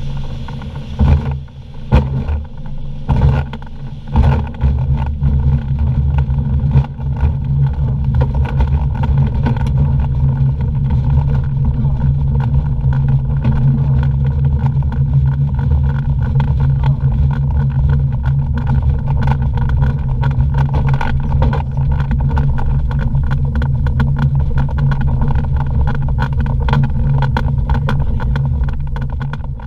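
DG505MB motorglider's pylon-mounted engine and propeller running steadily, with several loud knocks in the first few seconds.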